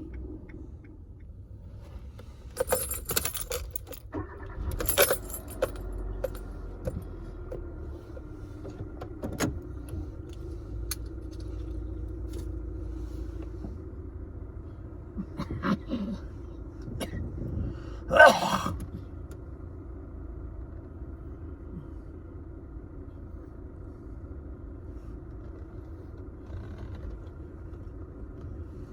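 Jingling and clattering handling noises in short bursts, loudest about 18 seconds in, over a steady low hum.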